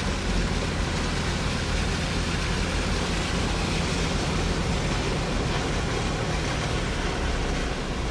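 Car engine running at low speed while the tyres push through shallow floodwater, heard from inside the cabin. There is a steady low hum under an even wash of water noise.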